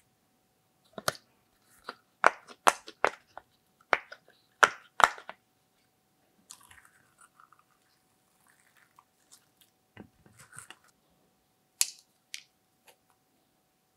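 Sticky slime crackling and popping as hands press and squeeze it, a quick string of sharp wet clicks over the first few seconds. Later come softer handling sounds and a couple of small sharp clicks from plastic lipstick tubes being handled.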